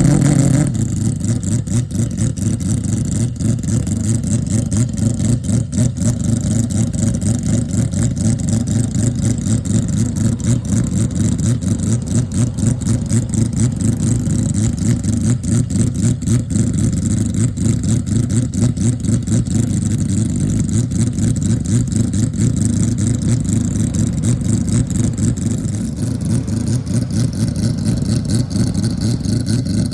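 Mazda 767B race car's four-rotor rotary engine running steadily with a rough, rapid pulsing, its pitch holding level after a short rev right at the start.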